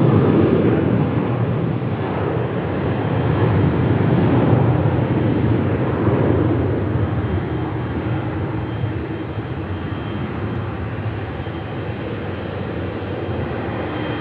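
Jet airliner engines: a broad, loud rumble that is strongest at the start and slowly fades, with a faint steady whine coming through in the second half.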